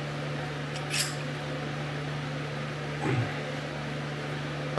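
Steady low hum of workshop room tone, with a light click about a second in and a soft low knock about three seconds in as dies are snugged into a hand-held hydraulic tube-flaring tool.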